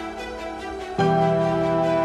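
Background music of sustained, soft tones, with a new, louder chord coming in about a second in.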